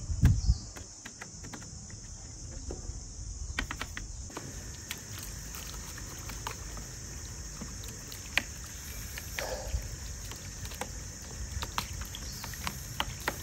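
Scattered light clicks and knocks of a plastic radio cassette player's casing and cassette compartment being scrubbed by hand and rinsed under a garden hose, over a steady high insect drone.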